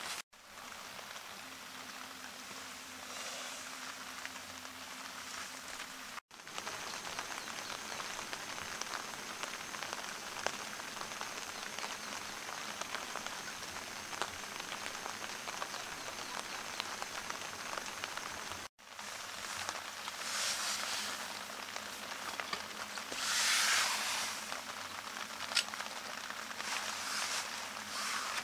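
Rain pattering on a tent's fabric fly: a steady hiss of many small drop ticks, swelling louder a couple of times in the latter part.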